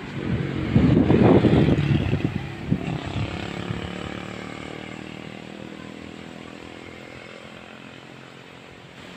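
A motorcycle passes close by, loudest about a second in, then its engine fades steadily away over several seconds.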